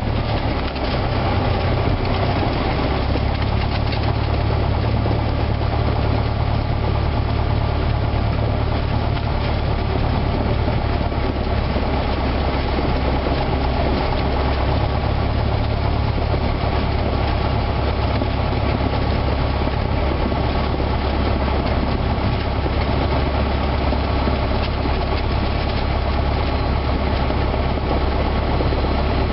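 Cessna 172's piston engine and propeller running at low power while the plane taxis, heard from inside the cabin: a steady, low-pitched engine sound that hardly changes.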